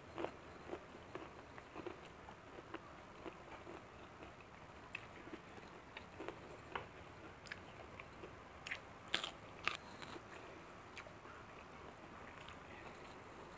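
A person chewing a mouthful of food close to the microphone, with soft wet mouth clicks throughout and a few sharp, louder crunches a little after halfway.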